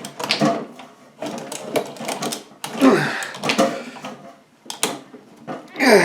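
Hand-cranked carbon-steel meat grinder forcing plastic sprue through its auger and cutter, in irregular bursts of crunching, clicking and creaking with short pauses, and a squeak that falls in pitch about three seconds in and again at the end. The sprue is jamming in the grinder rather than being cut.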